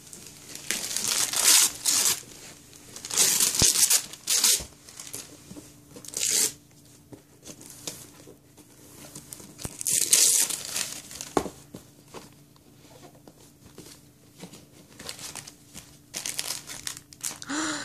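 Gift wrapping paper being ripped off a cardboard gift box by hand in several separate rips, with paper crinkling and rustling between them.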